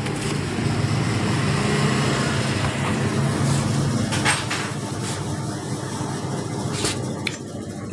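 A vehicle engine running steadily with a low rumble, with a few sharp metallic clicks over it.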